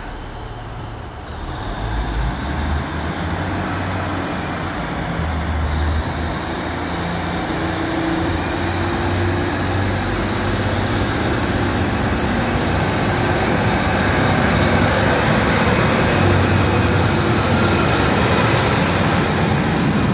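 Class 155 Sprinter diesel multiple unit pulling away from the platform under power: its underfloor diesel engines rev up and the sound grows steadily louder as the train accelerates and draws past, with rising wheel and rail noise.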